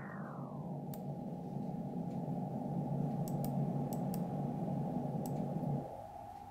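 Radio receiver audio from a coherent single-sideband demodulator: steady hiss with a faint steady tone, the weak test transmitter's signal just audible in the noise. The hiss turns duller in the first second as the receive bandwidth is narrowed, and its lower part drops away near the end, leaving the tone clearer. A few light clicks come from the laptop.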